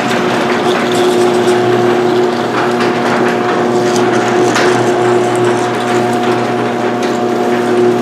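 Chain-drive garage door opener running and moving the door: a steady motor hum over a busy rattle of chain and moving parts.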